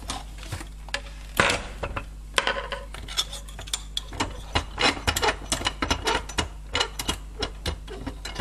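Irregular metallic clicks and clanks as a small metal workpiece is handled and clamped in a bench vise, with one louder knock about a second and a half in.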